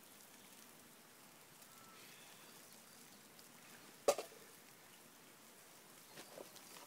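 Faint steady hiss of a campfire with food cooking over it, with one sharp crack about four seconds in.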